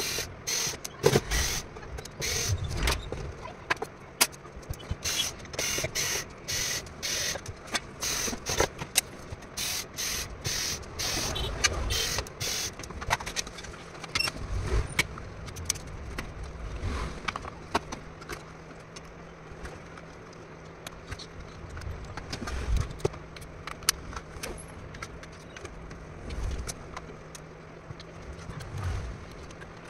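Hands unpacking a couriered electric-auto charger and opening its casing. A quick run of short scraping and tearing strokes fills the first dozen seconds, then come scattered knocks and clicks, with a faint low hum setting in about halfway.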